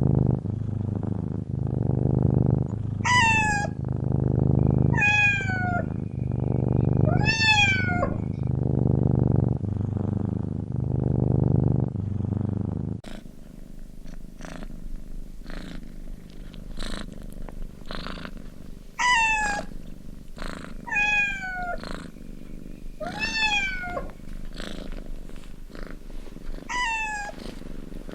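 Cat purring loudly in steady cycles, with a kitten meowing three times over it in high, falling calls. About halfway the purring stops suddenly and the kitten keeps meowing, about five more times, with a few faint clicks between.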